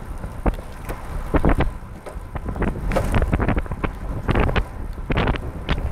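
Wind buffeting the microphone in irregular gusts over the low rumble of a recumbent trike rolling on a wet road.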